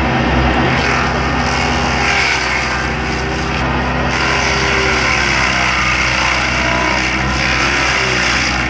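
Cangini hydraulic stump grinder on a mini excavator cutting into a tree stump: the excavator's engine runs steadily under load while the grinder wheel chews through wood, its pitch wavering as it bites.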